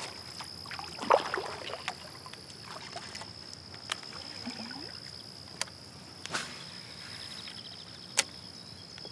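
A few short, sharp clicks and knocks of fishing tackle and hands against a plastic sit-on-top kayak, a Wilderness Systems Tarpon 120. A steady, high-pitched insect drone runs underneath.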